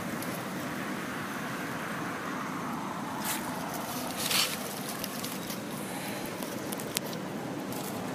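Steady outdoor rumble and hiss, with two brief rustles of dry leaf litter as macaques move among the fallen leaves, one just before halfway and the louder one at about halfway, and a single sharp click near the end.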